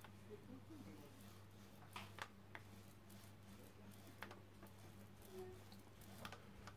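Near silence: a faint steady low hum with a few soft clicks as a rubber brayer is rolled over a gelatin printing plate to spread acrylic paint.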